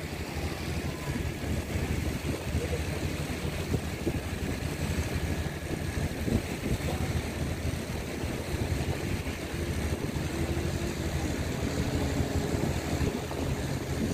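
Distant jet ski engine droning across the water, its tone clearer in the last few seconds, under heavy wind noise on the microphone.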